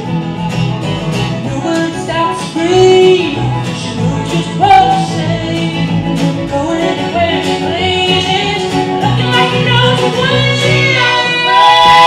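Live Americana string band playing: a woman sings lead over strummed acoustic guitar, bowed fiddle and plucked upright bass.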